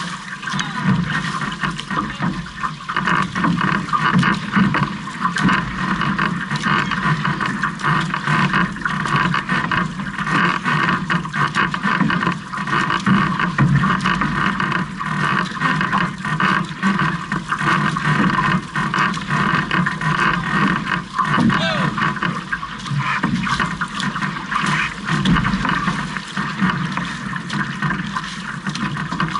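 Water rushing and splashing along an outrigger canoe's hull, with the splash of paddle blades entering and pulling through the water as the crew strokes.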